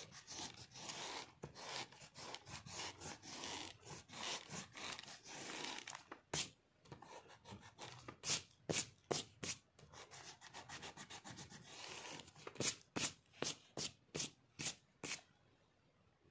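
Rubber eraser rubbing back and forth on paper, erasing pencil lines: quick continuous strokes at first, then separate short strokes, stopping about a second before the end.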